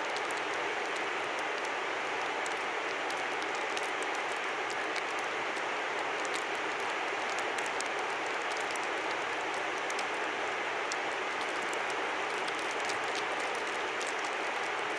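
River flowing in a steady, even rush, with scattered light ticks above it.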